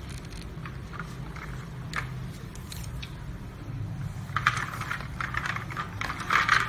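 Plastic toy train being handled: scattered light clicks and scrapes of plastic parts, with a denser run of rattling about four seconds in and again near the end, over a steady low hum.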